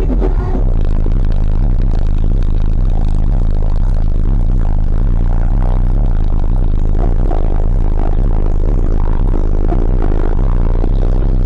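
Car audio system playing bass-heavy music at high volume, with deep, steady bass notes.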